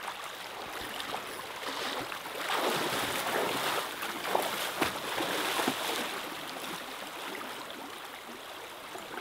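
Rushing river water. It swells louder for a few seconds in the middle, with a few sharp splashy spikes, then settles back.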